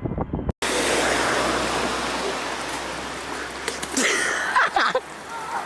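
A steady hiss of rushing water begins abruptly about half a second in, following a brief gap. Around four seconds in, a short voice cries out over it.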